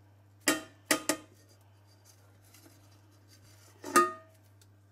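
Aluminium cake tin knocking against a ceramic plate as it is turned out to release a set strawberry gelatin: three light knocks in the first second or so, then a louder clink about four seconds in that rings briefly.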